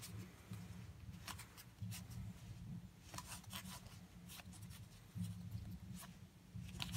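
Stiff game cards being slid and flipped from hand to hand: faint papery rustles and light clicks, over a low background hum.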